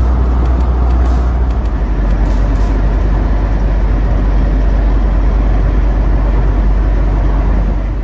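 Road and wind noise inside a moving Jeep Wrangler's cabin: a loud, steady low rumble with hiss over it.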